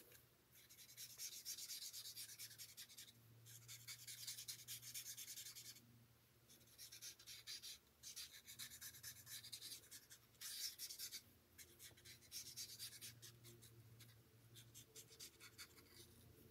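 Faint scratchy rubbing of a Stampin' Blends alcohol marker's felt nib on cardstock, in runs of colouring strokes a second or two long with short pauses between.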